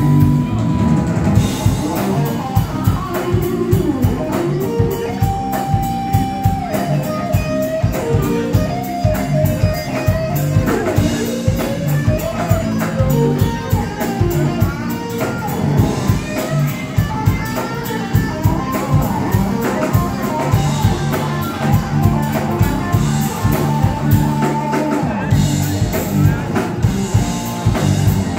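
Live rock band playing an instrumental passage: an electric guitar lead line with bent notes over bass guitar and a steady drum-kit beat.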